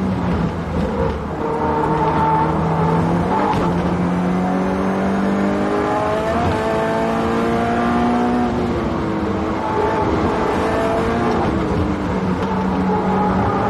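2010 Subaru Impreza WRX STI's turbocharged flat-four engine at full throttle on a fast lap, its pitch climbing under acceleration with a gear change about six and a half seconds in, then falling as the car slows, and climbing again near the end.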